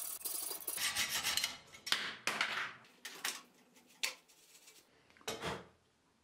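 Steel being worked with a hand file: about half a dozen separate rasping strokes, unevenly spaced, the later ones fainter.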